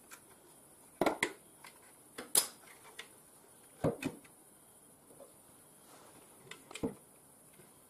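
Several sharp hard-plastic clicks and knocks as the plastic housing of an anti-bark device is handled and its parts fitted together.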